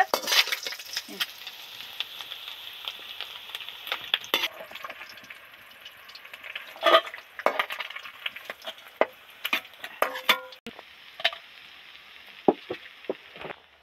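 Small mourola fish sizzling as they deep-fry in hot oil in a kadai. The hiss is strongest in the first few seconds and weaker after that, with scattered sharp clicks and knocks of a metal spatula stirring the fish against the pan.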